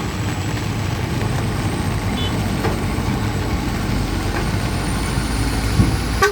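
Strong wind buffeting the microphone in a rumbling, gusty roar over heavy rain, cut off abruptly near the end.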